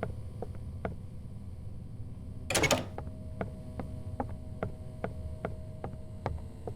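Faint clicking, evenly spaced at about two and a half a second, over a low steady hum, with one louder, noisy rushing burst about two and a half seconds in.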